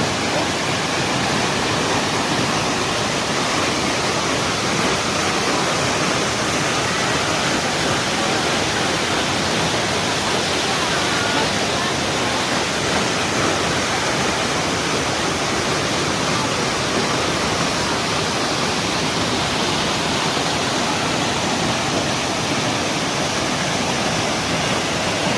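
Waterfall pouring steadily: a dense, unbroken rush of falling water.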